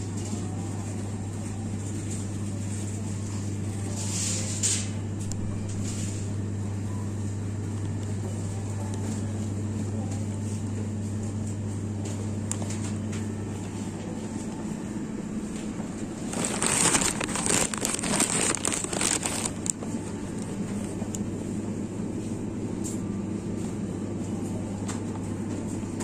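Supermarket ambience beside refrigerated display cases: a steady low hum that fades out a little past halfway. A few seconds later comes a loud stretch of rustling and crackling.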